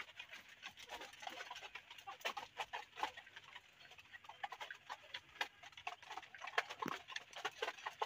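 Caged chickens and pigeons pecking feed from plastic feeder cups: quick, irregular tapping and clicking, with a few soft clucks.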